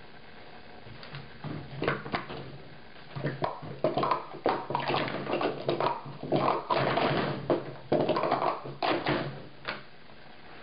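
Blue Speed Stacks plastic cups clattering in a fast run of clicks and taps as they are stacked up into pyramids and knocked back down on a stacking mat. The clatter starts about a second in and stops near the end.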